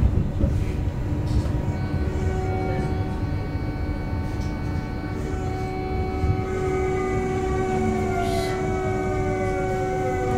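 Hamburg DT4 U-Bahn train heard from inside the car: a steady rumble of wheels on track under the whine of its electric traction drive. Several whine tones come in after a couple of seconds and fall in pitch over the second half as the train brakes into a station.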